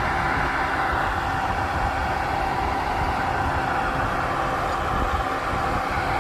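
Putzmeister truck-mounted concrete boom pump running steadily while pumping concrete, an even engine and hydraulic drone with a constant whine over it.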